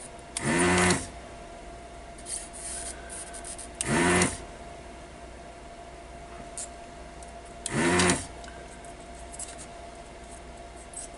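Three short bursts of a desoldering tool's vacuum pump, each about half a second and about four seconds apart, a motor hum over a rush of sucked air as solder is pulled off a component's pins. Faint clicks and scraping come in between.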